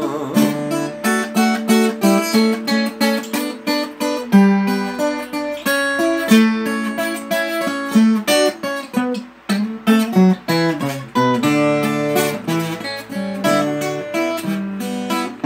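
Instrumental break in a sertanejo song: acoustic string instruments playing a run of plucked and strummed notes, with no singing.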